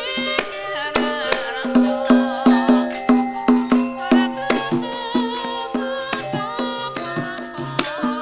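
Javanese gamelan music accompanying a dance: many ringing metallic tones over a regular low beat, with a wavering melodic line above.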